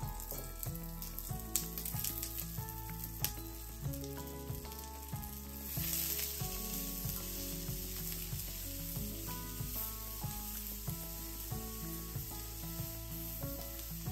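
Sliced eggplant, onion and carrot sizzling in perilla oil in a frying pan as they are stirred with a spatula, with a couple of sharp clicks in the first few seconds. The sizzle grows louder about six seconds in.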